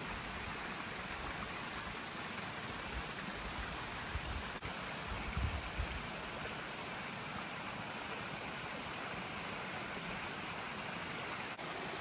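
Small mountain stream trickling and splashing over rocks: a steady rushing hiss. A few low rumbles on the microphone come about five seconds in.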